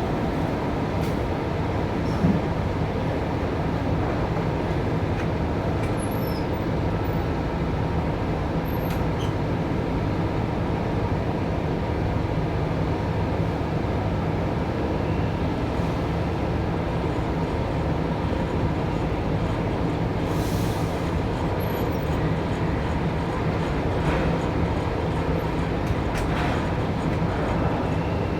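Steady mechanical drone of container-port machinery during container loading: a low, even hum with a few faint clicks and knocks.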